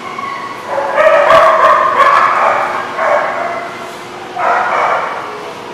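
Dog barking and yipping during rough play: a long run of barks starting about a second in, then two shorter bursts around three and four and a half seconds.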